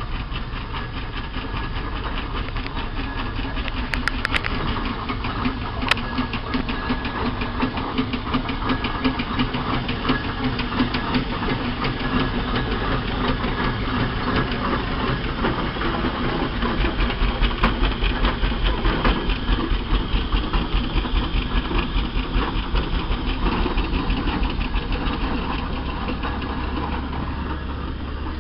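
Steam traction engine running close by as it moves off, its exhaust beating in an even rhythm that grows louder after about sixteen seconds. A few sharp clicks come about four and six seconds in.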